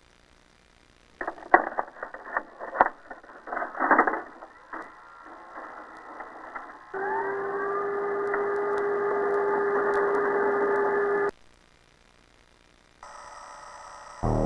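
Telephone-quality audio: a run of clattering knocks, like a handset being picked up and handled, then a steady dial tone held for about four seconds that cuts off suddenly.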